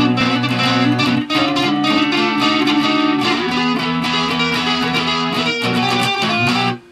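Electric guitar music: a fast run of picked notes, with a brief drop just before the end.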